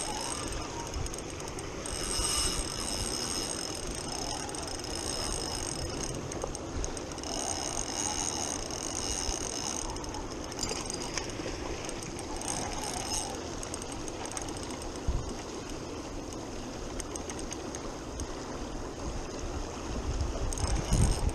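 Spinning reel being cranked, its gears running in stretches of a second or more, over the steady rush of a fast river.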